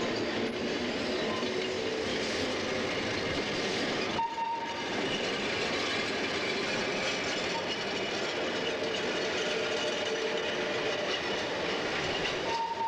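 Trams running on street track: a steady rumble and rattle of wheels on rails, with faint whining tones over it. The sound breaks off briefly about four seconds in and again near the end.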